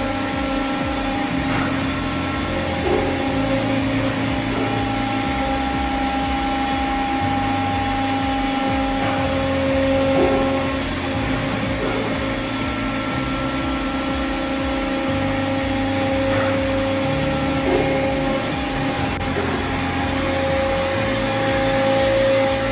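Hydraulic drive of a Schwing KSP piston pump system running loaded at full pump speed. It makes a steady machine hum, with higher tones that come and go every few seconds.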